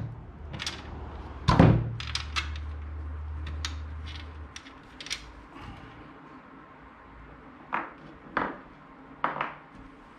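Clunks and light knocks of car-seat parts and hand tools being handled while a seat is unbolted and stripped, with one louder knock about a second and a half in. A low hum runs for about two seconds just after it.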